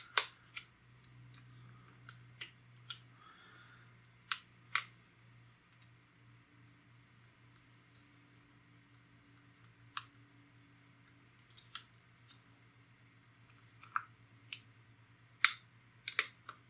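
Scattered sharp clicks and taps, about fifteen in all, of razor blades working at the edges of an iPod Touch screen and its retaining clips, over a faint low steady hum.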